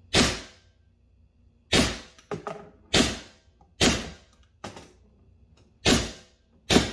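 Valken M17 magazine-fed .68 caliber paintball marker firing single semi-auto shots: six sharp pops about a second or so apart, each with a short echo off the garage walls. A couple of fainter knocks fall between the shots.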